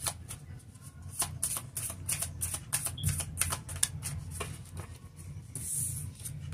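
Oracle card deck being shuffled by hand: an irregular run of crisp card clicks and snaps, with a brief swish of sliding cards near the end.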